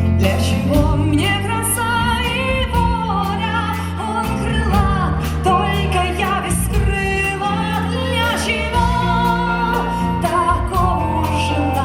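Live folk-rock band playing with a steady bass line and regular drum beats. On top runs a wavering lead melody that bends in pitch.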